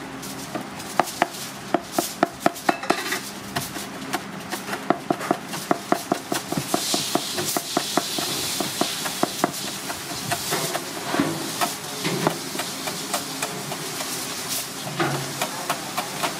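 A chef's knife rapidly chopping finely shredded green leaves on a plastic cutting board, several quick knocks of the blade on the board each second. A hiss rises in the background for a few seconds midway.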